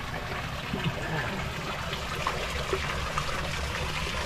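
Shallow creek water trickling and flowing steadily, with a few faint small clicks.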